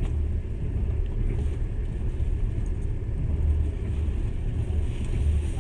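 Steady low rumble of a moving passenger train heard from inside the carriage: the wheels running on the rails and the car's own running noise.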